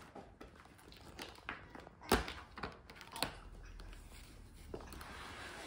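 Fabric travel bag rustling and crinkling as a cat shifts and sniffs inside it and a hand handles the bag, with scattered light taps and one sharper knock about two seconds in.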